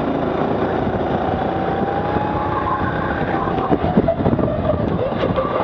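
Go-kart engine running at speed, heard from on board the kart. Its note holds high, then drops about three to four seconds in as the kart slows for a corner, with a few short knocks around the same moment.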